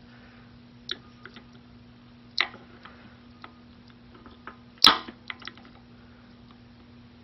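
Small flathead screwdriver prying at the lock cylinder of a chrome Harley-Davidson locking gas cap: scattered light metal clicks and scrapes, with a sharper click about five seconds in. A steady low hum runs underneath.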